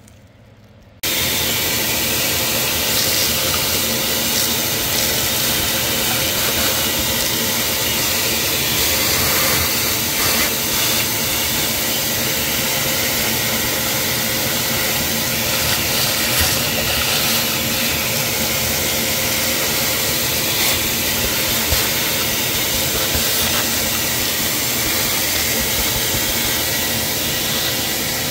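Shop vac switched on about a second in and running steadily, its hose sucking up loosened injector-leak carbon deposits from the top of a diesel engine, with a few faint clicks.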